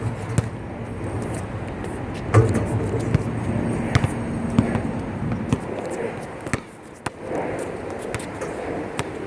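Basketballs bouncing on an outdoor court: several sharp thuds at uneven spacing, the loudest about two and a half seconds in, over steady background noise.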